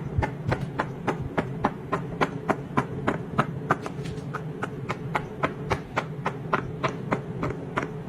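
Silicone pop-it fidget toy being popped bubble by bubble as fast as possible, a quick run of sharp pops at about four a second.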